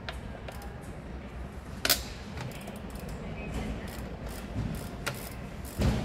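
Ratchet wrench and metal tool clicks and clinks as bolts on an engine's throttle body are worked loose, with a sharp click about two seconds in and a heavier knock near the end.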